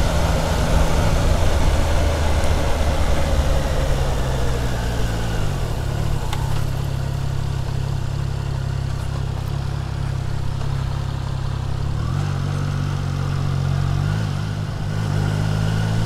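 Triumph Trident 660's inline three-cylinder engine: its note drops as the bike slows, about five seconds in, and it then runs steadily at low revs, close to idle.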